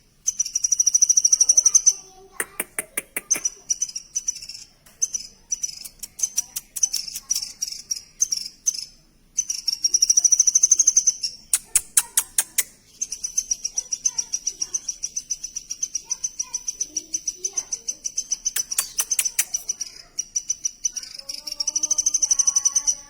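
Woodpecker nestlings begging: a continuous, fast, high-pitched chatter of rapid pulses that swells loud several times. There are a few short runs of sharp clicks.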